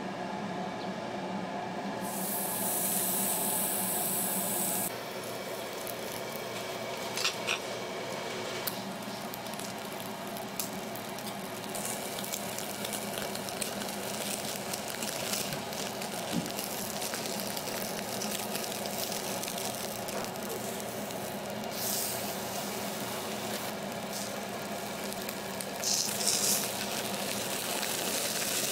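Beef sizzling on a charcoal grill, a steady hiss with a few faint clicks. The hiss swells louder a couple of seconds in and again near the end.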